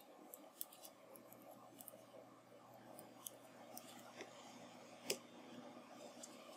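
Faint, irregular clicks of metal circular knitting needles as stitches are knitted, with one sharper click about five seconds in.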